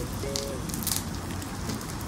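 Single-burner propane camp stove burning with a steady hiss while a skillet heats on it. A clear plastic bag crinkles twice as it is handled.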